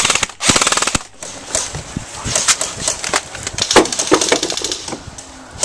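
Airsoft electric rifle firing a short full-auto burst, a fast even run of shots about half a second in. Scattered knocks and clicks follow.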